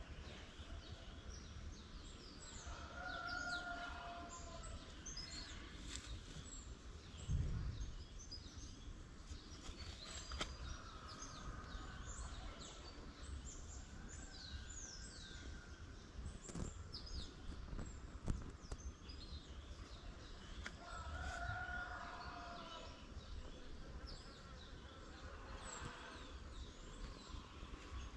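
Outdoor farm ambience: many birds chirping with short, quick calls throughout, and a longer held call twice, a few seconds in and again about 21 seconds in. A low rumble runs underneath, with a dull thump about 7 seconds in and a few sharp knocks later.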